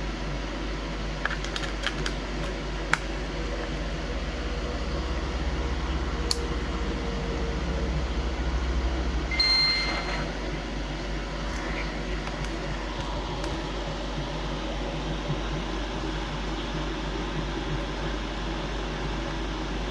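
Steady background hum with a few faint sharp clicks from the Game Boy Advance SP's buttons being pressed to test them, and a short high electronic beep about nine and a half seconds in.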